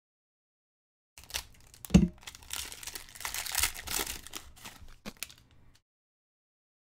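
Foil trading-card pack crinkling and tearing as it is ripped open by hand, starting about a second in, with one thump about two seconds in.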